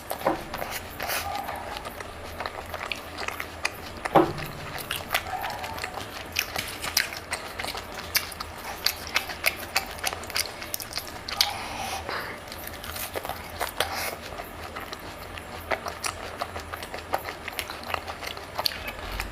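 Close-miked chewing and biting of chicken: many irregular short clicks and crunches of teeth and mouth.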